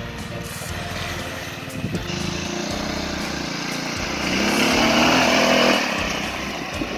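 Off-road go-kart buggy's engine running as it drives through a shallow flooded stream, water splashing from the tyres. The engine and splashing grow loudest a little past halfway as the buggy passes close by, then ease off.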